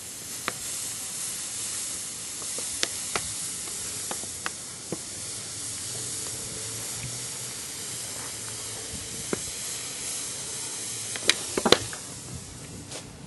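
Water hissing and sizzling as it is poured onto a concrete slab heated at the focus of a solar concentrator, turning to steam on contact. Scattered sharp crackles come through the steady hiss, with a burst of louder ones near the end.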